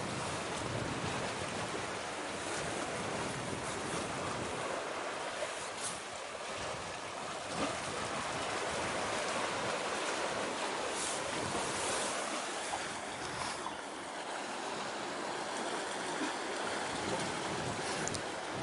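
Sea waves washing steadily against the shore, a continuous hiss of surf with a few brief brighter swishes.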